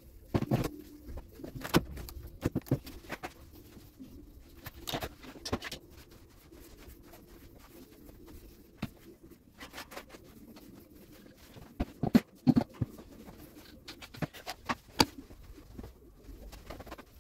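Scattered knocks, clacks and short scrapes of a long-handled floor squeegee and footsteps on a wet concrete floor as dog hair is pushed into piles, loudest about half a second in, around two seconds in and again about twelve seconds in.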